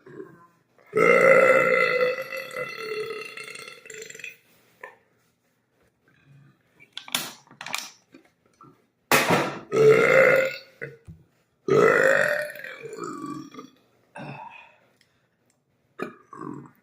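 Deliberate loud burps brought up after gulping carbonated soda: one long drawn-out burp lasting about three seconds, then several shorter burps.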